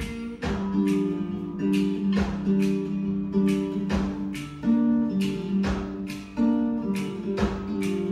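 Song with steadily strummed acoustic guitar chords, played back through a wall of Bang & Olufsen BeoSound Shape hexagonal speaker tiles.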